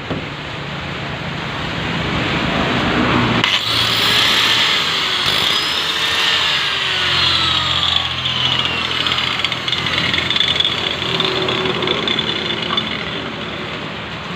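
Angle grinder cutting into 15 mm plywood: a steady, loud motor-and-blade noise that gets heavier about three and a half seconds in, its pitch sagging as the blade bites into the wood.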